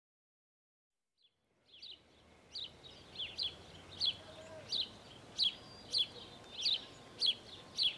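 Prairie dog calling: a steady run of short, high, sharp chirps, about one and a half a second, starting about two seconds in.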